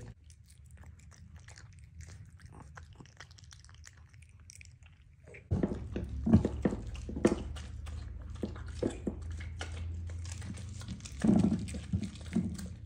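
A Bengal cat chewing raw meat, faint wet clicks. About five and a half seconds in, two miniature dachshunds eating raw meat from bowls take over, with louder chewing and smacking.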